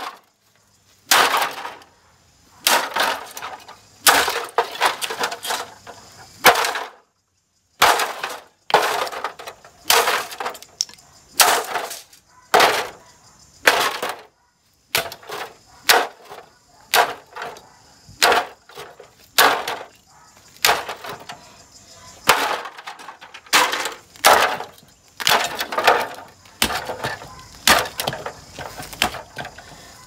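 A golf club repeatedly smashing a Mistral Gyro Aire GA-12 box fan: sharp cracking hits on the plastic housing and grille as it breaks apart, roughly one strike a second, with a few brief dead-silent gaps.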